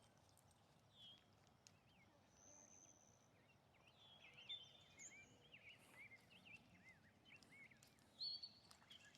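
Faint bird chirps and short whistled notes over near silence, thickest in the second half.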